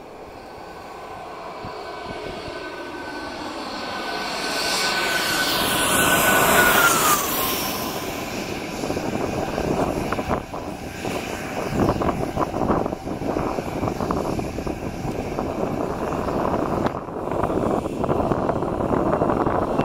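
Dassault Falcon 2000EX business jet landing: its twin PW308C turbofans' whine grows louder on approach, then drops in pitch as the jet passes close. After that, a broad jet-engine roar carries on through the landing roll.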